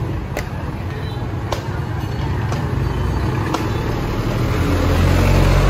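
Street traffic: a vehicle engine runs close by and grows louder toward the end, over a steady street rumble. A sharp click sounds about once a second.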